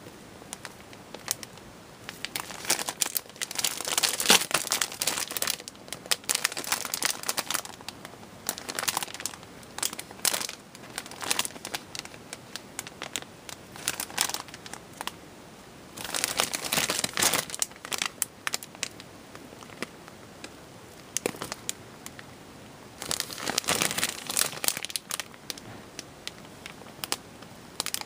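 Clear plastic bags around model-kit sprue runners crinkling as they are handled, in three spells of crackling with quieter pauses between.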